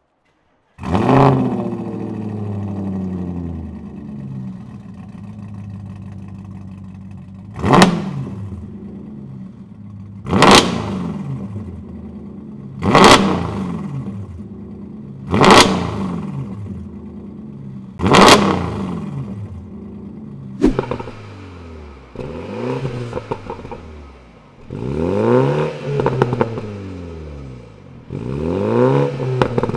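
A first-generation Audi RS5's 4.2-litre V8 starts with a flare, settles to idle, and is then free-revved five times in quick blips, each rising sharply and dropping back. About two-thirds of the way through, a BMW Z4 sDrive30i's 2.0-litre turbocharged four-cylinder takes over, revved several times with each rev rising and falling more slowly.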